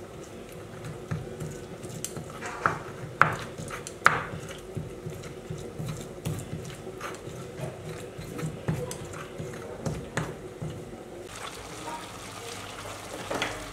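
Stone pestle scraping and knocking on a flat stone grinding slab (Nepali silauto and lohoro) as a wet tomato-and-chilli spice paste is ground, in irregular strokes with a few sharp knocks about three to four seconds in. Near the end it changes to a steadier hiss of mushrooms frying in a pan.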